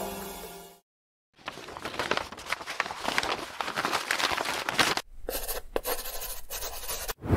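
Paper rustling and crumpling sound effect, crackly and scratchy, in two stretches with a brief break about five seconds in. Background music fades out just before it begins.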